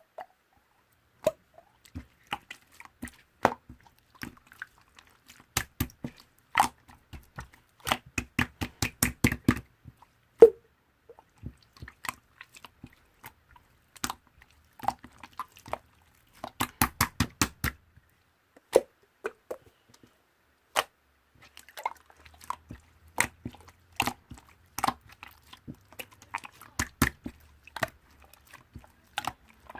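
Slime being handled and played with, giving sticky clicking and popping sounds, some in quick runs of several pops a second and others singly.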